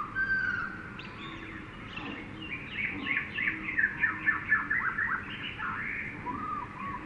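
Several birds calling in a jungle soundscape: whistled calls near the start and again near the end, and a fast run of short, high, falling notes in the middle, over a steady background hiss.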